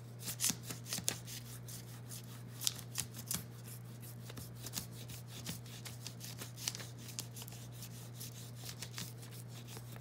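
A wax crayon rubbed quickly back and forth over printer paper laid over a leaf: a run of fast, uneven, scratchy strokes.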